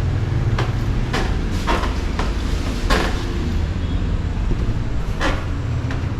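Footsteps going down a staircase: a run of knocks about half a second apart over the first three seconds, then two more near the end, over a steady low hum.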